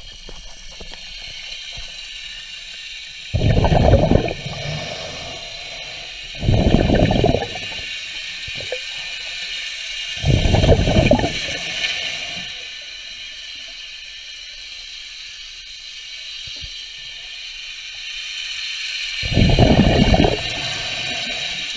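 Underwater recording of a diver's exhaled air bubbling out of a scuba regulator, in four separate gurgling bursts of about a second each at uneven gaps, over a steady faint hiss.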